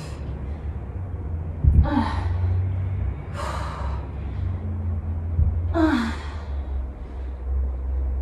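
A woman breathing hard under exertion during single-leg kettlebell deadlifts. Hissing breaths alternate with short voiced exhales that fall in pitch, about one every two seconds.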